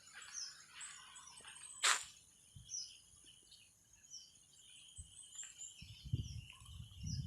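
Faint, scattered bird chirps, short high calls repeating irregularly, with one sharp click about two seconds in.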